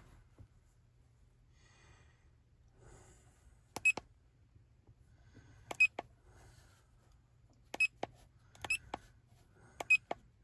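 Button presses on a Foxwell AutoMaster Pro OBD2 scanner's keypad: short, sharp key clicks, some in close pairs, about five or six presses a second or two apart, starting about four seconds in.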